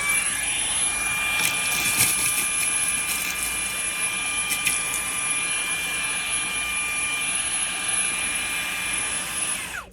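Fanttik Slim V8 APEX cordless handheld vacuum running at its higher speed setting: a steady, high-pitched motor whine with a rushing airflow sound. Near the end it is switched off and the whine falls away.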